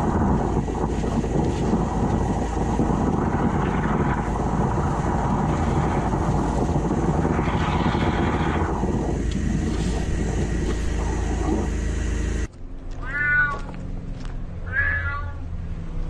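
Water jetter running, with water gushing and splashing out of a curbside drain outlet: a steady loud rush over a low hum. Near the end it cuts off suddenly, and a cat inside a drain pipe meows twice.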